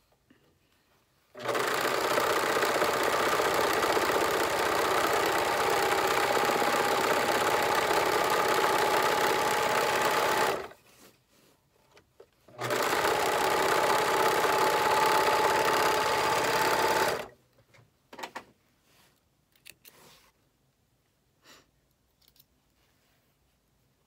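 Electric sewing machine running at steady speed while a seam is stitched, in two long runs with a short stop in between; it is a bit noisy, with a faint steady whine. Near the end the machine is stopped and there are only a few faint clicks.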